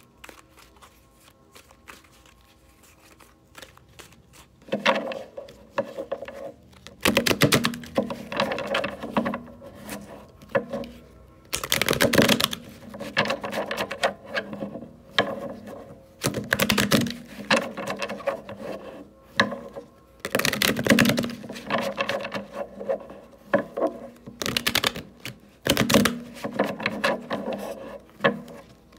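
A tarot deck being shuffled by hand: bursts of rapid card flicking and riffling, starting about five seconds in and repeating every few seconds with short pauses between.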